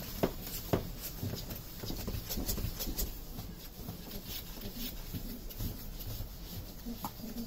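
Saint Bernard puppies moving about and playing on a floor and cardboard: scattered light taps and scuffs of paws, with two sharp knocks within the first second.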